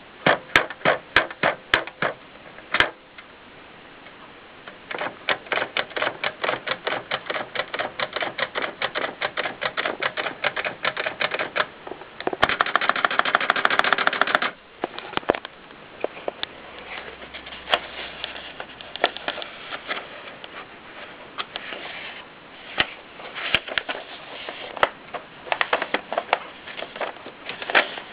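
Kolibri manual typewriter being typed on: bursts of sharp keystroke clacks, with a fast, even run of clicks lasting about two seconds a little under halfway through, and sparser strokes toward the end.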